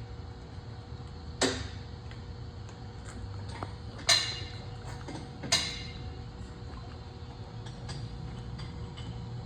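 Steel bar stock knocking against the lathe spindle as it is freed and shoved through: three sharp metallic clanks, each with a short ring, about a second and a half, four and five and a half seconds in, the middle one loudest. A steady low hum runs underneath.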